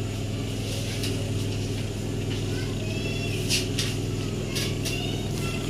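A steady low hum runs throughout, with a few faint, short high-pitched sounds about three and five seconds in.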